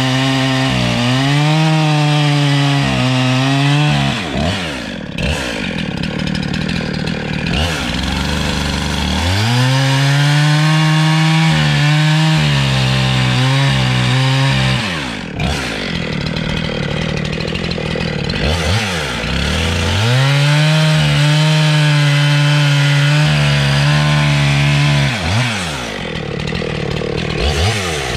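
Husqvarna 372 two-stroke chainsaw with a 28-inch Sugihara bar, held at full throttle as it cuts through a eucalyptus log. The revs fall to a low idle between cuts about 4, 15 and 25 seconds in, and climb back for the next cut, three full-throttle cuts in all.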